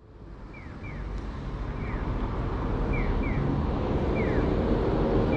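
City street traffic, fading in at the start and then steady, with an audible pedestrian crossing signal chirping short falling tweets, mostly in pairs, about once a second.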